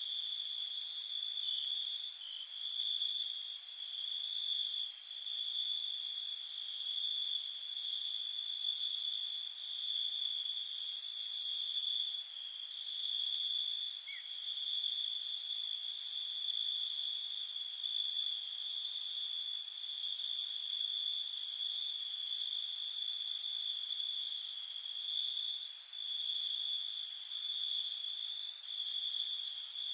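Crickets chirping: a steady high trill runs underneath, with louder, higher chirp bursts about every two seconds.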